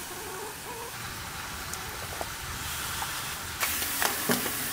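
A steady hiss, then, about three and a half seconds in, a few light clinks and knocks as a glass teapot is lifted from the stove top.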